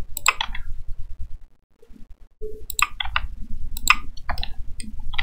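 Scattered clicks of a computer keyboard and mouse, a few at a time with a short lull about two seconds in, over a low background rumble.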